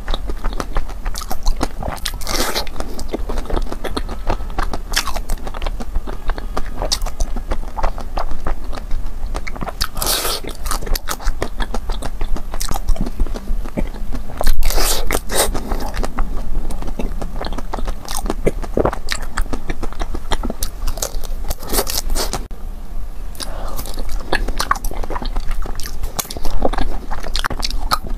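A person biting into and chewing ice cream bars close to the microphone: many small sharp mouth clicks, with a few louder bites scattered through.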